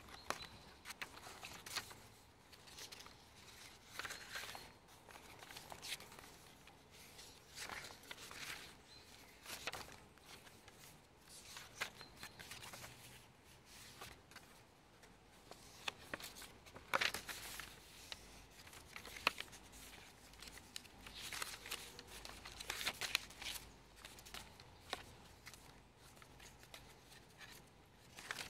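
Paper and card pages of a handmade junk journal being turned by hand: irregular rustling with a few sharper snaps, the louder ones in the second half.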